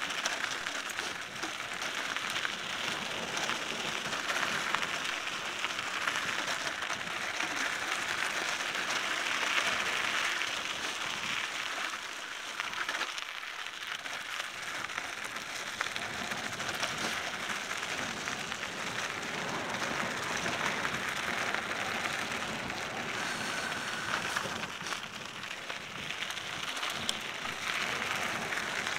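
Riding noise of a Cannondale mountain bike descending a dry dirt and gravel single-track, heard from a helmet camera: a steady, rough hiss of tyres on dirt mixed with rushing air.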